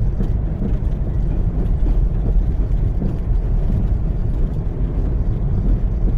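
Steady low rumble of a car driving through deep, unplowed snow, its tyres and body pushing through the snow cover.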